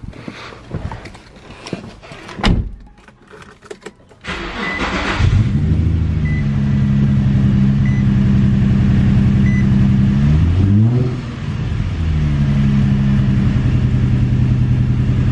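Infiniti G35's 3.5-litre V6 cranking and catching about four seconds in, then idling with a misfire (random misfire, code P0300). The idle dips and picks up again briefly around eleven seconds in. Before the start there are clicks and knocks from the driver getting into the car.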